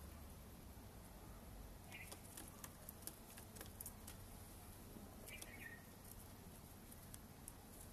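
Caged bird giving two short, faint, high calls, about two seconds in and again past the middle, the second falling slightly, over scattered faint ticks and scratches in the seed-strewn cage.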